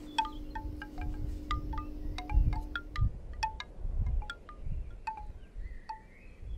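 Wind chimes tinkling in irregular single strikes over low gusts of wind on the microphone; a low steady hum stops about three seconds in.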